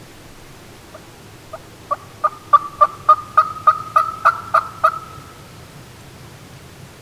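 Wild turkey yelping, most likely from a hunter's hand call: a run of about a dozen sharp, evenly spaced notes, about three a second, quickly getting louder. It is a hen-style yelp series, used to draw an answer from a distant gobbler.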